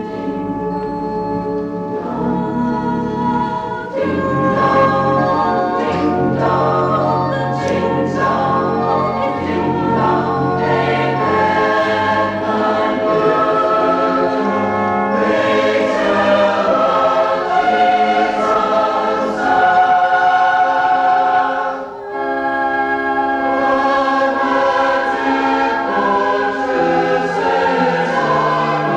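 College choir singing a choral piece in several parts, holding chords. The sound dips briefly about 22 seconds in, then the chords resume.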